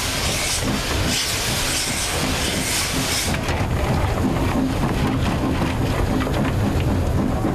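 Steam locomotive cab: steam hissing loudly for the first three seconds or so, over the locomotive's steady low rumble. Through it, the fireman's shovel scrapes and clatters in the coal briquettes.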